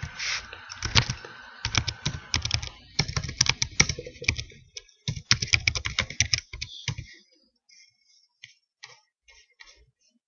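Typing on a computer keyboard: a quick run of key clicks for about seven seconds, then a few faint scattered clicks.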